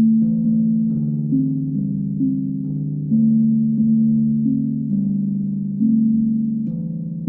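Moyo drums played slowly, a new pitched note struck about every second. Each note rings on and fades under the next, stepping between a few low pitches.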